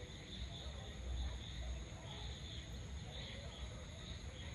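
Evening insect chorus, a high chirring that swells and fades every second or so, over a steady low rumble.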